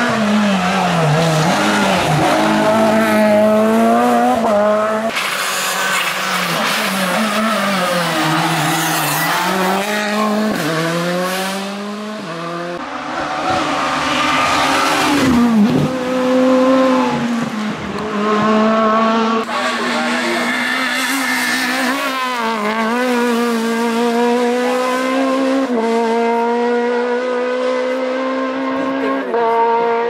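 Rally cars passing one after another at full throttle, each engine note climbing and then dropping sharply through gear changes and braking.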